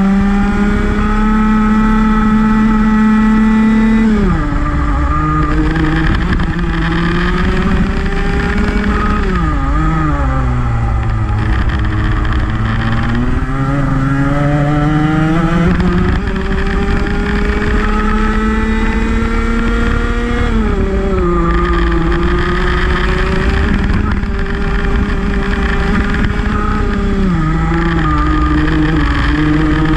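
Rotax Max 125 cc single-cylinder two-stroke kart engine racing under full throttle, its pitch climbing steadily along the straights and dropping sharply four times as the kart brakes for corners, once falling to a long low stretch through a slow corner before building again.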